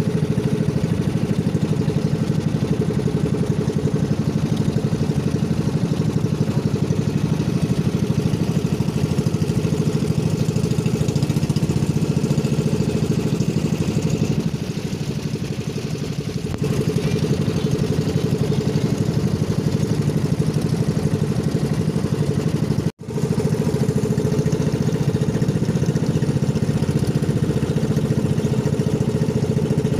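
Engine of an outrigger motorboat running steadily with a fast, even chug. It drops back for a couple of seconds about halfway through, and the sound cuts out for an instant about two-thirds of the way in.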